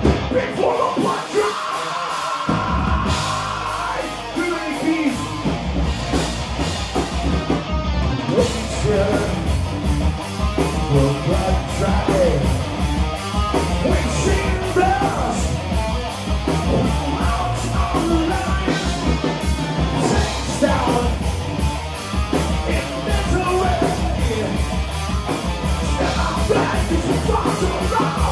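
Live heavy metal band playing a song. A single guitar note holds at the start, then the full band comes in about two and a half seconds in with distorted guitars, bass and drums, under shouted vocals.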